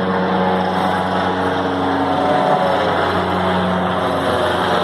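Army helicopter flying overhead, its rotor and engine making a steady, loud drone.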